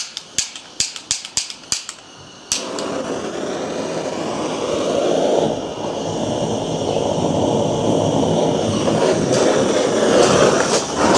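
Rapid clicking of a handheld gas torch's igniter, about eight clicks in two seconds, then the torch lights about two and a half seconds in and burns with a steady, loud hiss.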